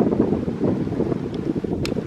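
Freight train autorack cars rolling past: a steady low rumble and clatter of steel wheels on rail, with wind on the microphone and one short sharp click near the end.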